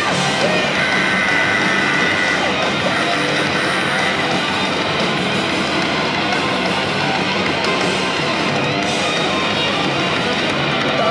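Live punk band playing loud and without a break: distorted electric guitar, bass guitar and drums.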